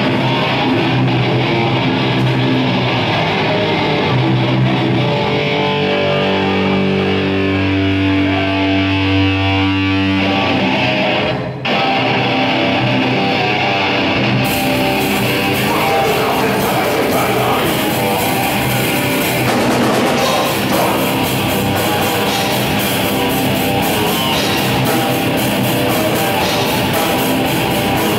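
A heavy band playing live and loud: distorted guitar holds sustained chords over a low drone for about the first ten seconds. After a short break the full band comes in, with drums and cymbals, a few seconds later.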